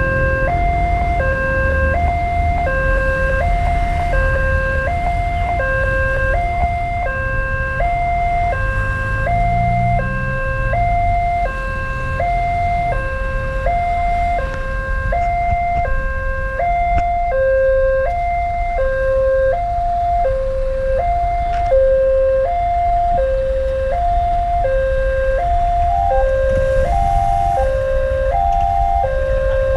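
Railway level-crossing warning alarm sounding a two-tone electronic chime, a low and a higher note alternating evenly about every three-quarters of a second, as the crossing barrier comes down. Low road-traffic rumble runs underneath, stronger in the first dozen seconds.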